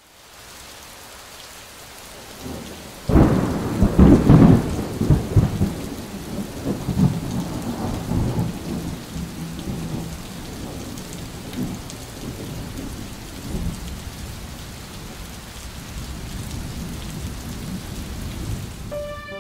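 Thunderstorm: steady rain hiss with a loud thunderclap about three seconds in that rumbles away over several seconds, followed by fainter rolls of thunder.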